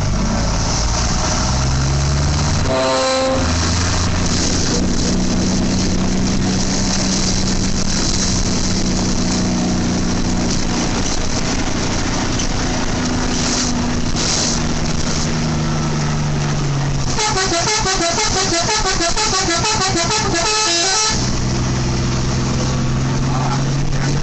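Multi-tone 'telolet' bus horn of a Rukun Sayur bus playing a tune: long held notes that change pitch every few seconds, broken by a fast trilling run of alternating notes about three-quarters of the way through.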